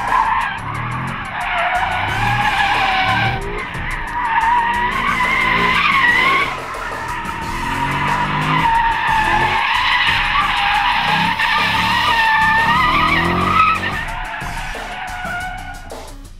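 V8 muscle cars drifting: tires squealing loudly with a wavering pitch while the engines rev underneath. The squeal fades near the end.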